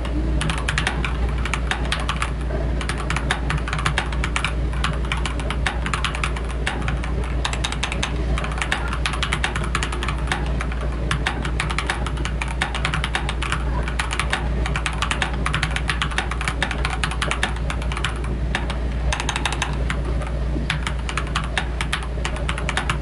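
AKKO 3098N mechanical keyboard with stock TTC Flame Red linear switches being typed on steadily: a fast, irregular stream of key clicks and bottom-outs, over a steady low hum.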